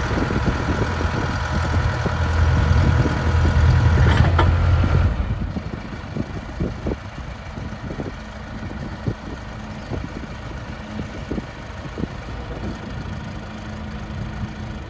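John Deere 310D backhoe's diesel engine running steadily, its sound dropping sharply to a much quieter level about five seconds in. Scattered knocks and clicks follow over a faint low hum.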